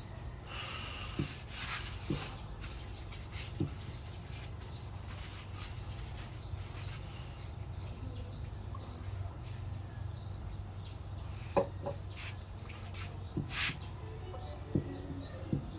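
Birds chirping in quick runs of short rising notes over a steady low hum, with a few sharp knocks or taps now and then.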